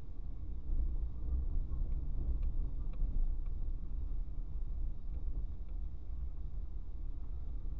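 Low, steady rumble of a car driving slowly on a forest road, engine and tyre noise heard inside the cabin by a dashboard camera, with a few faint ticks about two to three seconds in.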